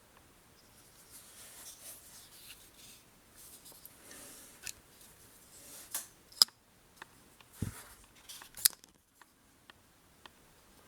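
Petrified Fish PF818 ball-bearing flipper knife being handled: soft rubbing, then a handful of sharp metallic clicks as the D2 blade is flipped open and snapped shut.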